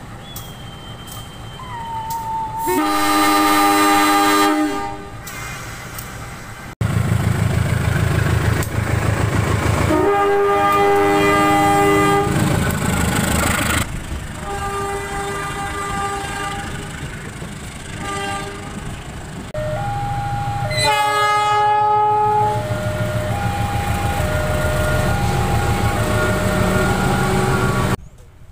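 Indonesian CC 201-class diesel locomotive horns sounding Semboyan 35, the horn signal that acknowledges the departure signal. There are loud blasts about 3, 10 and 21 seconds in over the low running of the locomotives' diesel engines, and a two-note alternating horn sounding near the end.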